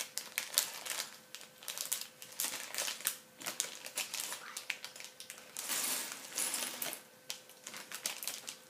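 Plastic Lego parts bag crinkling as it is handled, with small plastic Lego pieces clicking against one another.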